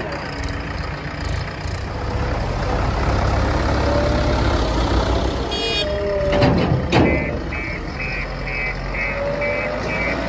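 JCB 3DX backhoe loader's diesel engine running steadily while it works, with two loud clanks about two-thirds of the way through. Then its reversing alarm beeps evenly, about two to three beeps a second.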